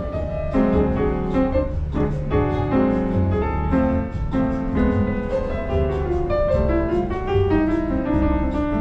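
Solo grand piano playing a flowing melody over chords, with single notes ringing and fading one after another.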